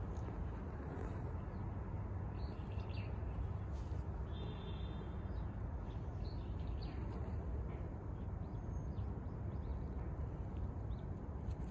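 Outdoor ambience: a steady low rumble with scattered small bird chirps over it, and one short repeated bird call about four and a half seconds in.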